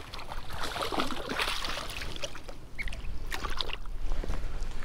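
A hooked crappie splashing and thrashing at the surface of shallow water as it is reeled in, then smaller splashes and water movement, with a low rumble near the end.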